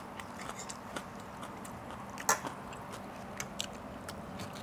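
Close-miked chewing and biting of a mouthful of rice-noodle salad, with small wet mouth clicks throughout and one sharper click about two seconds in.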